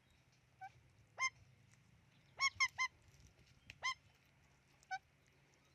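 A parrot giving about seven short, sharp squawks, with a quick run of three about two and a half seconds in.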